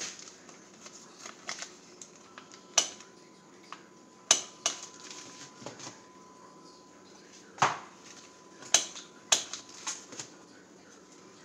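Scattered sharp clicks and taps of a knife and ceramic plate as butter pats are cut and placed on cheese-topped bread slices, about a dozen knocks at uneven intervals.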